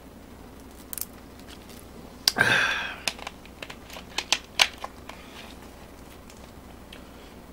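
A plastic soda bottle being handled and set down after a swig. There is a sharp click, then a short throaty exhale from the drinker, then a quick run of sharp plastic clicks and crinkles.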